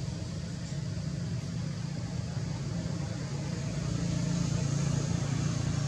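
Steady low background rumble with a faint hiss above it, growing a little louder about four seconds in.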